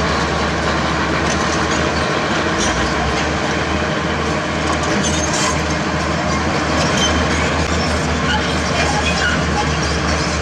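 Tracked heavy construction machine working: a diesel engine running steadily under load, with steel crawler tracks clanking and scattered high-pitched metallic clicks and squeaks.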